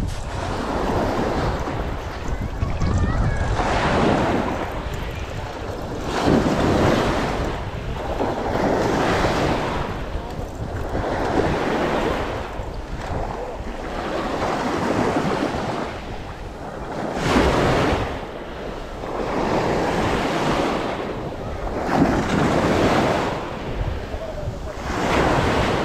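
Small waves breaking and washing up the shore, swelling and fading in a regular rhythm about every two and a half seconds, with wind buffeting the microphone as a low rumble underneath.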